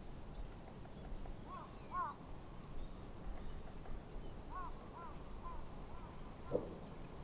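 Crows cawing: a few short calls in two groups, then one louder call near the end, over a low background rumble.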